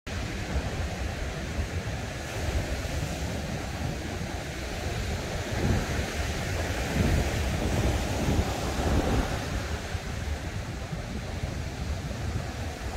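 Ocean surf breaking and washing on the beach, a steady rushing with a louder stretch from about six to nine seconds in, over a low rumble of wind on the microphone.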